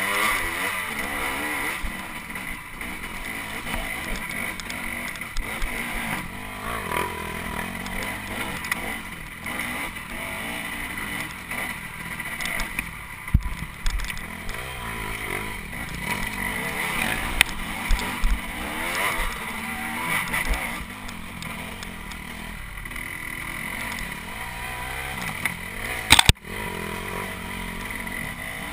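Off-road dirt bike engine running, revving up and down, with a few sharp knocks, the loudest near the end.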